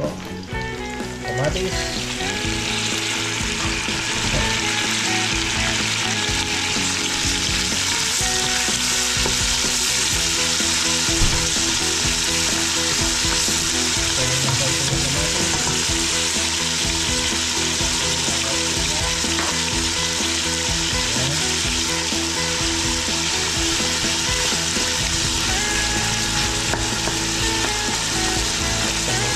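Food frying in hot oil in a pan: a steady sizzle that swells up about two seconds in and holds, with one sharp knock about eleven seconds in.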